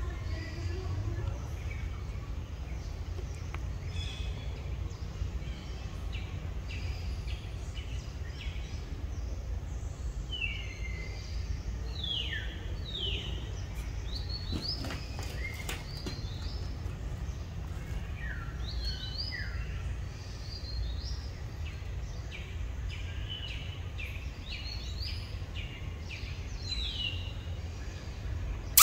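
Small birds chirping, many short, quickly falling high calls repeated more often in the second half, over a steady low background rumble.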